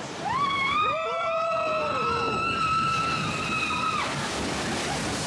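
Splash Mountain log-flume riders screaming over rushing water: one long high scream held for about four seconds, and a shorter, lower scream overlapping it near the start.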